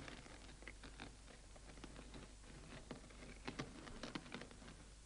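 Faint, irregular clicks and scuffs of horses' hooves and harness as a team of horses strains to pull a carriage, bunched most thickly about three and a half to four and a half seconds in.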